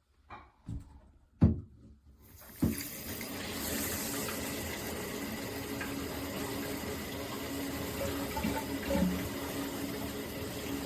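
Water flow from a handheld shower head is off, with a few knocks and clunks of handling, the sharpest about a second and a half in. Then the spray starts about two and a half seconds in and runs steadily.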